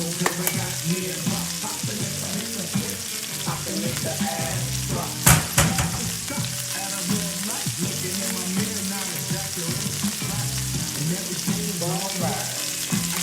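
Food sizzling in a hot pan, a steady frying hiss, with a sharp knock about five seconds in.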